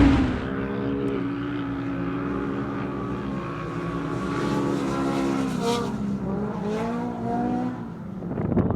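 Race UTV engine running, its pitch rising and falling with the throttle.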